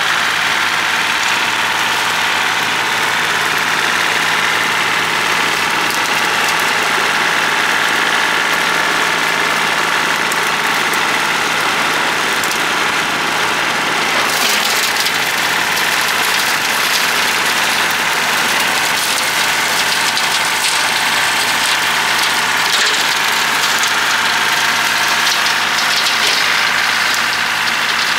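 John Deere 790 compact tractor's three-cylinder diesel engine running steadily under work, with a hissier, crackling edge coming in about halfway through.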